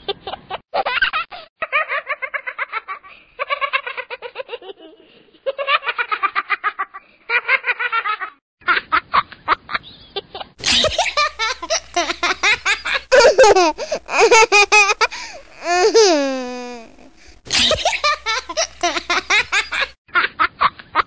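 Babies laughing in quick runs of giggles, one laughing clip after another; about ten seconds in a different, brighter recording with a low hum takes over, and around sixteen seconds one long laugh slides down in pitch.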